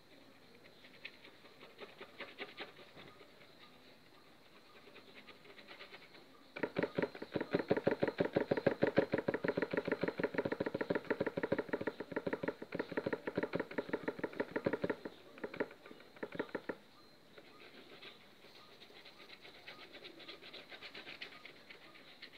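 Paintbrush dabbing on a stretched canvas: a fast run of light taps, stippling in clouds, that starts about a third of the way in and lasts about ten seconds, with fainter scattered taps before and after.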